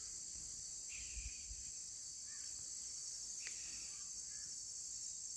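Steady, high-pitched shrilling of an insect chorus, crickets or similar, with a few faint short chirps scattered through it.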